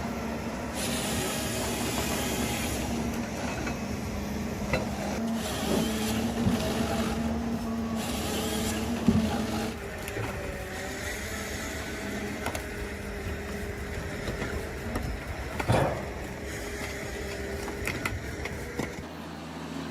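Heavy logging machinery running steadily, with a held mechanical whine through the first half and two sharp knocks, about nine seconds in and again near sixteen seconds.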